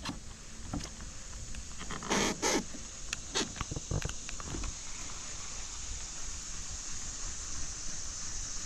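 A few knocks and clatters of gear being handled in a kayak, bunched about two to four seconds in, over a steady high hiss.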